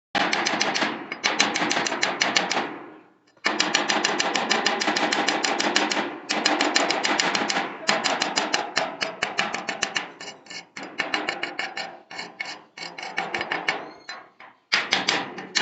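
Electric arc welding: a fast, crackling run of sharp ticks in stretches a few seconds long. It stops and restarts about three times as the arc is broken and struck again.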